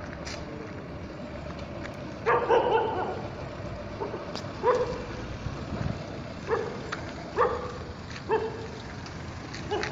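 A dog barking: a quick run of barks a couple of seconds in, then single barks about every second, over a steady background rumble.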